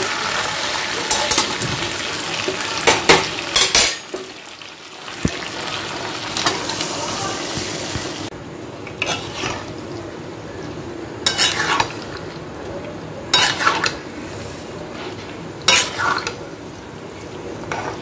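Metal spatula stirring and scraping fried fish heads and boiled moong dal in a sizzling pan. A steady sizzle runs under sharp scrapes and knocks against the pan every couple of seconds.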